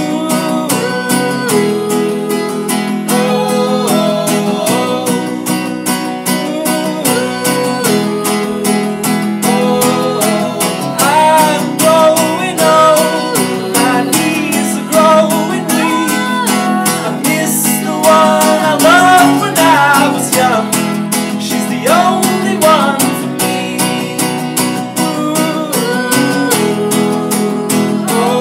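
Instrumental break of a folk song: acoustic guitar strummed steadily under a lead melody that slides and bends in pitch.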